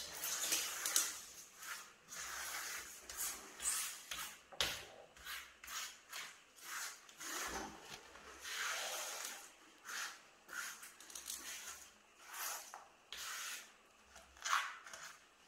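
A rubber grout float rubbing and scraping across glazed ceramic floor tiles in repeated strokes, about one to two a second, working wet grout into the joints. One sharper knock about four and a half seconds in.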